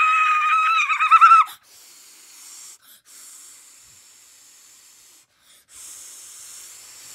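A high-pitched cartoon voice holding a long wailing cry that wavers and breaks off about a second and a half in, followed by faint breathy hissing.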